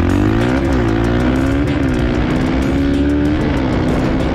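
Yamaha TT-R125 dirt bike's single-cylinder four-stroke engine revving hard under full acceleration. Its pitch climbs, drops at gear shifts about half a second and about a second and a half in, then climbs steadily again.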